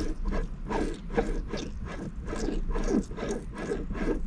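A shift knob being screwed onto the threaded shaft of an automatic transmission shifter, giving an irregular run of small clicks and scrapes, about two or three a second.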